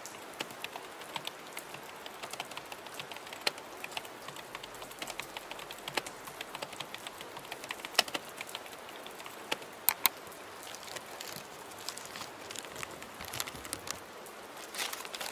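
Typing on a computer keyboard, irregular key clicks with two louder clacks about ten seconds in, over a steady hiss of rain.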